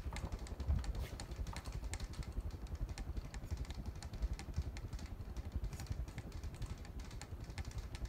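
NuTone Verandah II ceiling fan with a spinner motor, running on high, its blades moving air in a rapid fluttering pulse with light clicking through it.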